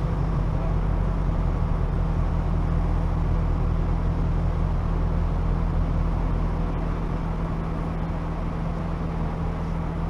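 2014 Ford Mustang GT's 5.0-litre V8 running steadily at low speed, a low, even engine note with light road noise.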